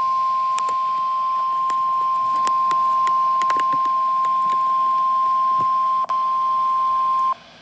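Weather-radio warning alarm tone: a single steady tone of about 1050 Hz, held for about seven seconds with a brief dropout near the end, over faint clicks.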